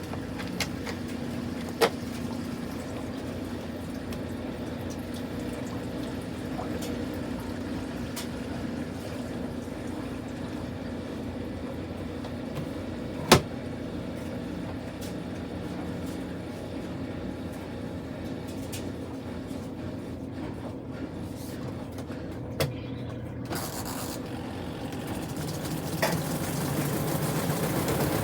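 Kuppet portable twin-tub washing machine running, a steady motor hum broken by a few sharp knocks, the loudest about halfway through. Near the end the hum grows louder and deeper.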